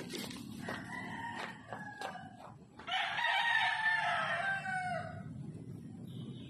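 A rooster crows loudly once, about three seconds in, after a couple of shorter calls a second or two earlier. Underneath runs a low, steady sound of the Motorstar Nicess 110's engine idling after being started.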